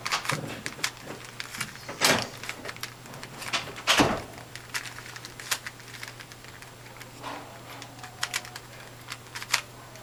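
A well-greased standard Rubik's Cube being turned fast by hand: an irregular stream of plastic clicks and clacks as its layers snap round, with a couple of louder clacks about two and four seconds in.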